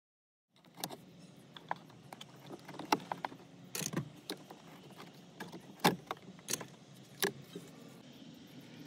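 Irregular clicks and knocks of hands working at the plastic trim around a car's instrument cluster, starting about half a second in, with the sharpest knocks around the middle.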